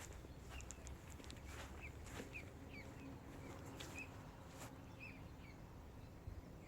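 Faint outdoor ambience: small birds chirping a few times in short notes over a low rumble of wind, with a few faint ticks.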